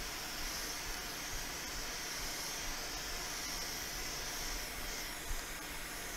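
Hot air rework gun blowing a steady hiss at a phone's back glass to soften its adhesive, with a faint tick about five seconds in.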